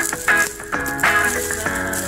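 Background instrumental music: a melody of short held notes over chords, changing a few times a second.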